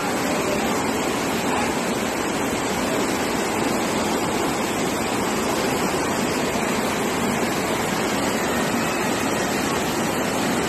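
Fast floodwater rushing and churning, a steady, unbroken rush of water.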